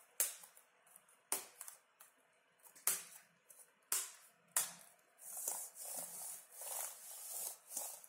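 Sharp plastic clicks, about five in the first five seconds, as hands press down along a Lenovo Flex 2-14 laptop keyboard to lock its retaining clips into the frame. After about five seconds there is a denser scraping and rubbing of hands moving over the plastic keyboard deck, with small clicks in it.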